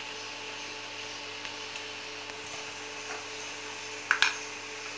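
Steady faint hum and hiss of kitchen background, with one short clatter about four seconds in as a container is picked up from the counter.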